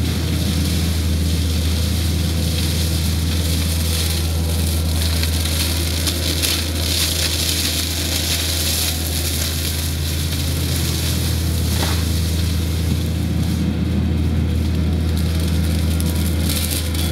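Takeuchi TL130 compact track loader's engine running steadily under load as its front brush mulcher chews through brush, a constant low drone with continuous crackling and snapping of woody stems being shredded.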